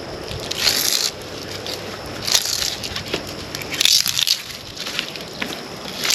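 Plastic insulation crackling and crunching as it is peeled off a slit aluminum wire, in several short bursts.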